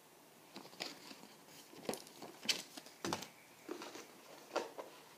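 Cardboard and paper packaging being handled while a headphone box is unpacked: a string of short rustles, taps and clicks, about seven of them, the sharpest near the middle.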